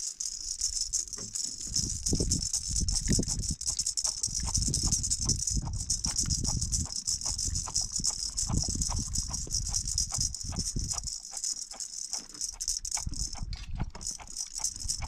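A baby's plastic toy rattle shaken by hand, a steady high shaking that pauses briefly twice. A low rumble runs underneath for much of it.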